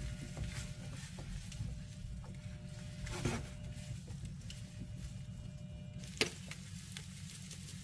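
Kitchen cooking sounds: a steady low hum with faint sizzling and scattered clicks of utensils, and a sharp click about six seconds in.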